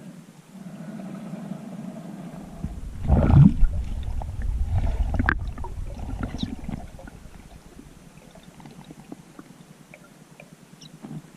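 Water churning and gurgling, loudest for a few seconds from about three seconds in, with one sharp click in the middle, then quieter scattered ticks.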